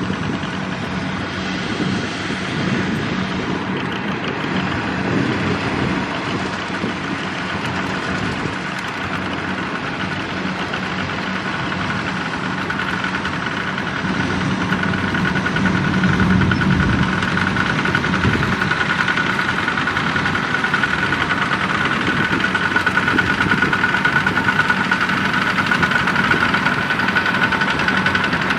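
Kubota two-wheel walking tractors' single-cylinder diesel engines running steadily as they drive across a field together, with a knocking beat and a high whine. It gets louder about halfway through as a tractor comes close.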